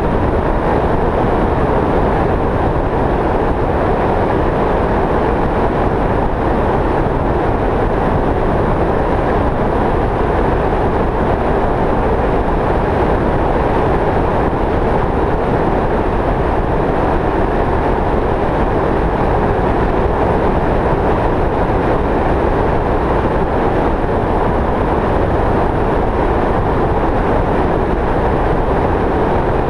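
Steady road and wind noise from a vehicle travelling at highway speed: a constant even rush with no changes or separate events.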